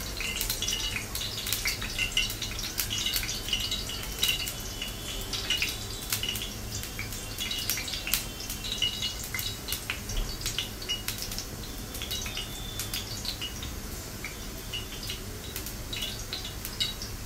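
Hands patting and rolling a minced-chicken cutlet in dry breadcrumbs on a steel plate: a rustling crackle of crumbs with many small clicks and ticks.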